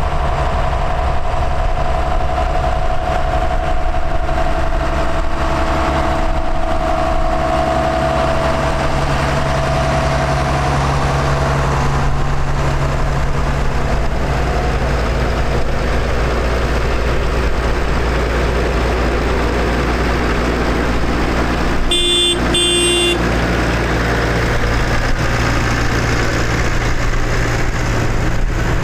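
Diesel engines of large modern John Deere and New Holland tractors driving slowly past one after another, a steady engine drone whose pitch shifts as each tractor goes by. About three-quarters of the way through, a horn toots briefly.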